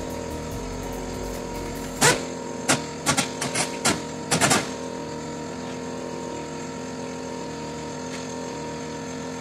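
Hand tools knocking against the metal underside of a car: a quick, irregular run of about eight sharp knocks and clinks starting about two seconds in. A steady background hum runs underneath.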